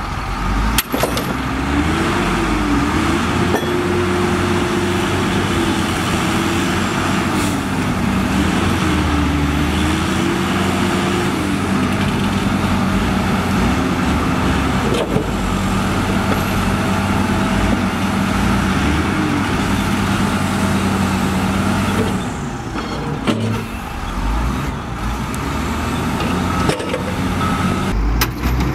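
Heavy diesel engines of a DISD SD300N wheel loader and a dump truck running, the engine note rising and falling as the revs change. The sound drops slightly and changes character about 22 seconds in.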